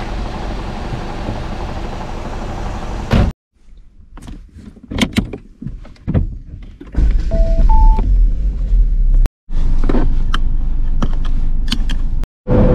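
A Saab's engine is started with the key in the centre-console ignition. A few light clicks come first, then the engine catches about seven seconds in and runs steadily, with two short dashboard chimes, the second higher. The engine keeps running as sharp clicks come from a plug being pushed into the console socket.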